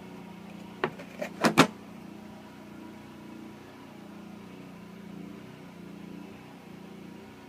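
Generac generator engine running steadily on a natural gas conversion kit, an even hum. About a second in come a few sharp clicks or knocks, the last the loudest.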